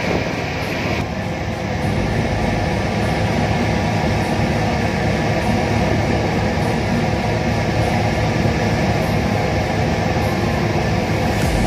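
Steady drone of a tugboat's engine heard from on board, a dense low rumble with a constant hum, the high hiss dropping slightly about a second in.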